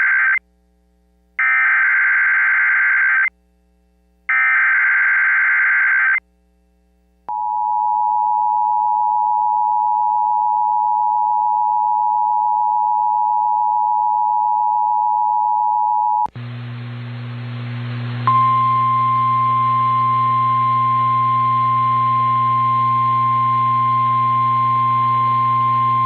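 Emergency Alert System signals. Three harsh, warbling SAME digital header bursts sound about a second apart, then the two-tone attention signal holds for about nine seconds. The sound then switches to hissy, humming radio reception, over which a single steady NOAA Weather Radio warning alarm tone starts a couple of seconds later.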